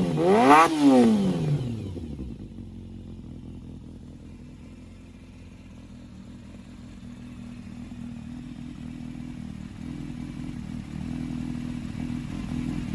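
Honda CBR400F's inline-four engine revved once, its pitch rising and falling back within the first two seconds, then settling to a steady idle. The engine, freshly overhauled, runs without odd noises.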